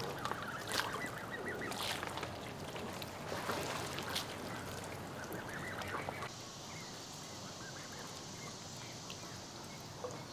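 A flock of Canada geese honking, many short calls overlapping for about six seconds. The calls then mostly stop, leaving a steady high hiss with only an occasional faint call.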